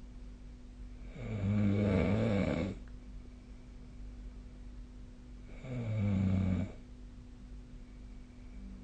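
A sleeping person snoring: two long, low snores about four seconds apart, the first nearly two seconds long, over a faint steady hum.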